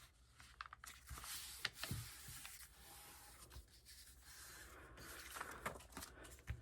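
Faint rustling and rubbing of paper sheets being handled and folded in half, with a few light taps and scrapes scattered through.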